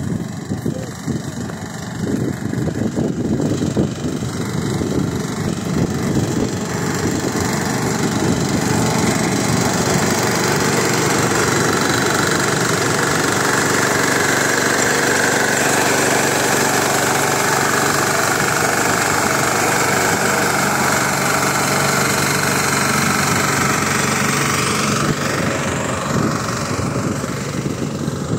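Small engine of a walk-behind reaper running steadily under load as it mows a standing green crop. It grows louder and steadier about six seconds in.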